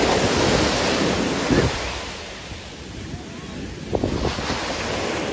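Wind buffeting the microphone over the wash of sea waves, swelling and easing in gusts: louder at first, dropping off around the middle, then rising again.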